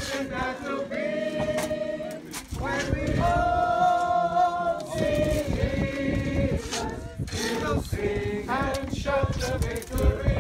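A congregation singing a hymn unaccompanied, a mixed group of voices holding long notes.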